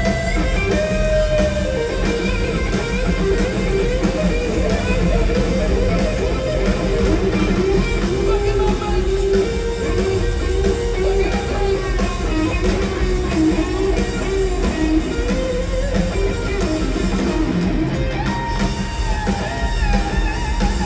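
Live rock music: an electric guitar playing an intro of notes that slide up and down, over a steady, heavy low end.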